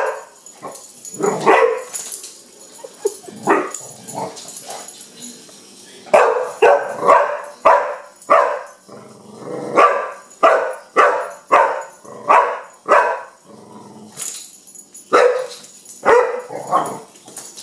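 Young pit bull barking in repeated short barks, coming about two a second in a dense run through the middle of the stretch.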